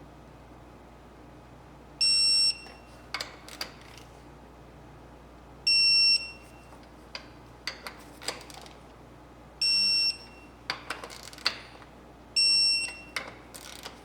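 Snap-on TechAngle electronic torque wrench beeping four times, each a high half-second beep, as each flywheel bolt reaches its set torque of 16 foot-pounds. Sharp clicks and knocks between the beeps as the wrench is worked on the bolts.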